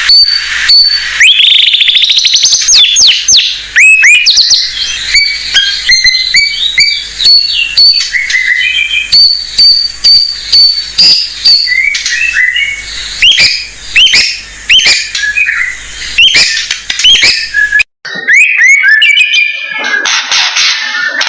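White-rumped shama (murai batu) singing loudly: a fast, varied run of clear whistles, rising and falling phrases and sharp ticking notes. The song breaks off for a moment about eighteen seconds in and resumes with a different recording.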